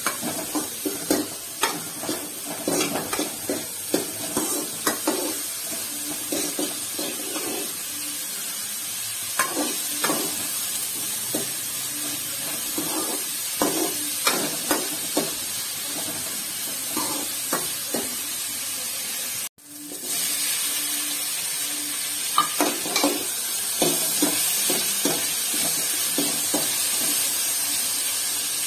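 Chopped onions and green chillies sizzling in oil in a metal kadai, with a metal ladle scraping and clicking against the pan in runs as they are stirred. The sound cuts out for an instant about two-thirds of the way through. After that, tomatoes are frying and being stirred, and the sizzle is a little louder.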